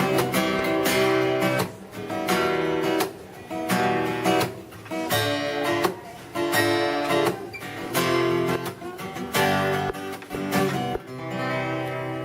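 Acoustic guitar strummed in full chords, phrase after phrase with brief breaks between the chords.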